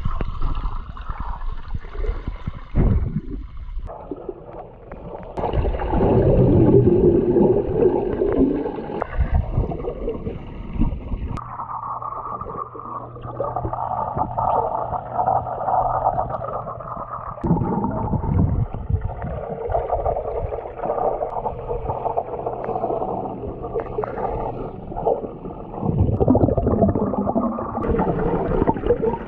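Underwater pool sound picked up by a submerged camera: muffled water movement and gurgling bubbles from a diver's breathing and finning, swelling and fading. A steady low hum runs for several seconds in the middle.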